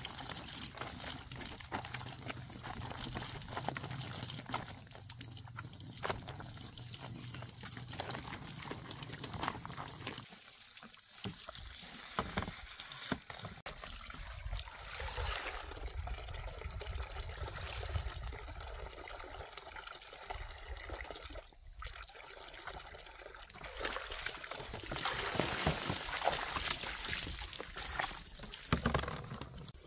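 Water trickling steadily from a bamboo pipe into a plastic basin, with the slosh and splash of clothes being scrubbed by hand in soapy water. It gets louder near the end as the basin is tipped and the water is poured out.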